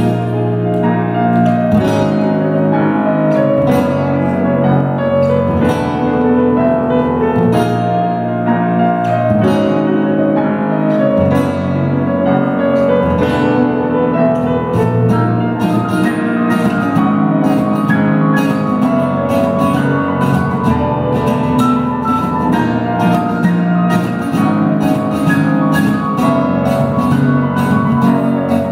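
Live instrumental music led by piano, a continuous flowing melody over sustained chords at an even loudness.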